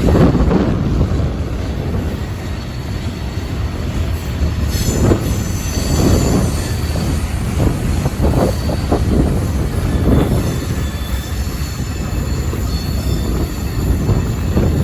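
Union Pacific freight train rolling past with a steady rumble and a run of clacks from its wheels over the rail. A high wheel squeal rises about a third of the way in and again over the last few seconds. Wind rumbles on the microphone.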